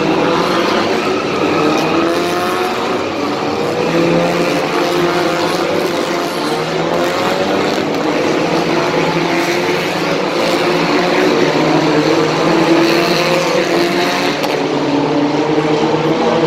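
Several racing cars' engines running together at once, their pitches rising and falling as they rev and pull away.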